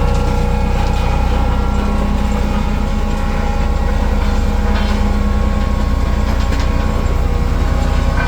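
Soil compaction machine running steadily on a construction site: a continuous engine drone with a strong low hum and a few faint clicks.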